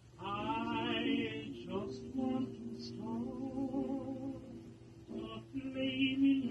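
Music: a singing voice with strong vibrato over sustained low notes, the voice swelling about a second in and again near the end.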